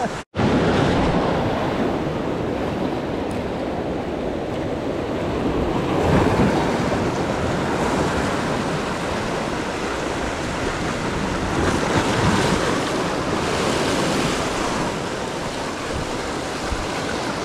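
Ocean surf breaking and washing over the rocks at the waterline, a steady churning rush that swells louder about six seconds in and again about twelve seconds in.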